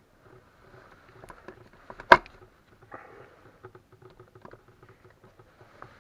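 Scattered light clicks and taps of hand work on an outboard's gearcase while its gear oil is drained, with one sharp knock about two seconds in.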